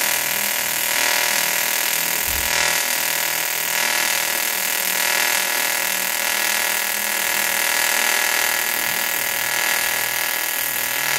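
TIG welding arc from a Jasic AC/DC TIG welder, burning steadily as a bead is laid on two small plates: a continuous buzz with a fixed tone over a hiss.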